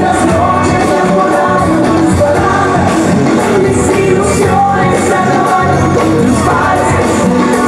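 Loud live music over a PA system with a woman singing into a microphone, over a steady beat.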